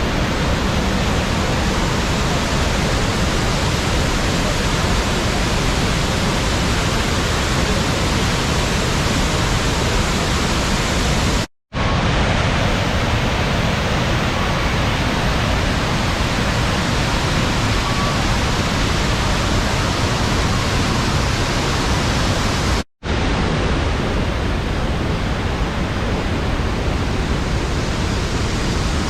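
Thiruparappu waterfall on the Kodayar River: a loud, steady rush of falling water, broken twice by a brief moment of silence, once near the middle and again about three-quarters of the way through.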